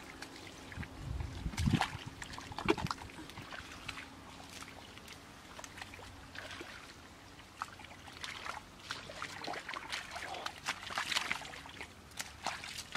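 Hands squelching and slopping through thick wet mud and shallow muddy water, with irregular wet splats and scrapes, a few low thuds in the first three seconds and a busier patch of splashing near the end.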